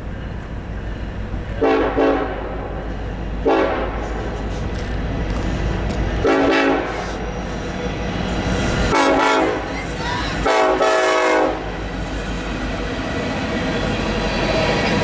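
Norfolk Southern SD70ACe locomotive's air horn sounding five short-to-medium blasts, over the low rumble of approaching diesel locomotives. In the last few seconds the locomotives and empty coal hopper cars roll past, the noise of steel wheels on rail growing steadily louder.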